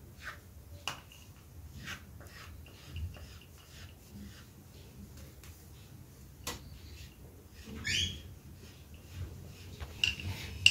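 A kitchen knife cutting soft rolled dough on a bamboo chopping board: faint scattered taps and scrapes of the blade on the wood, roughly a second apart, with one louder scrape about eight seconds in.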